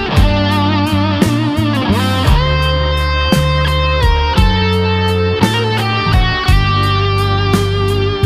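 Background rock music with an electric guitar playing bending, vibrato lead lines over bass and a steady drum beat.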